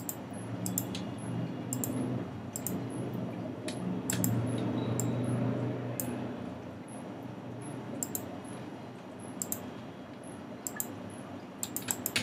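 Scattered computer mouse clicks with a quick run of clicks near the end, over a low steady hum.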